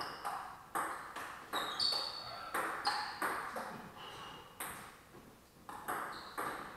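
Celluloid-style table tennis ball clicking off rubber paddles and the tabletop in a rally, about a dozen sharp hits at an irregular pace, each with a brief high ring and a little room echo.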